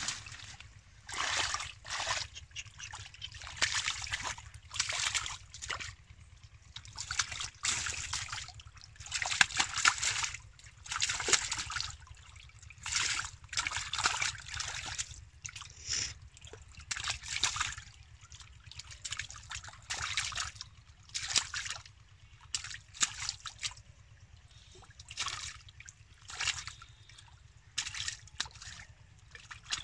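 Hands splashing and sloshing in shallow muddy water while a catfish thrashes at the surface: irregular splashes about a second apart.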